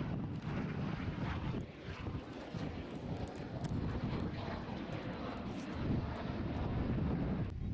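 Fixed-wing aircraft engine noise, a steady dense rumble, with wind on the microphone.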